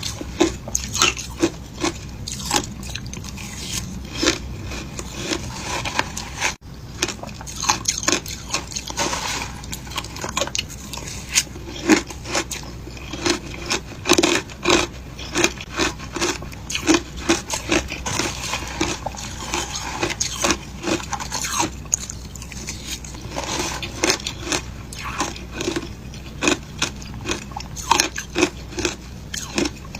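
Frozen passion fruit ice being bitten and chewed: a steady run of short, crisp crunches following one another in quick succession.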